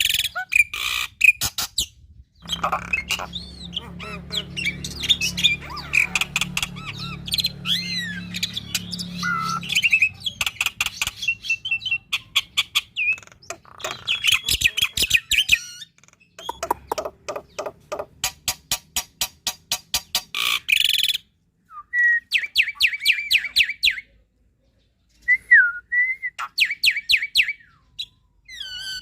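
Black-winged myna (jalak putih) singing a long, varied song full of mimicked fills: fast runs of rapidly repeated harsh notes, squawks and short whistled glides, broken by brief pauses.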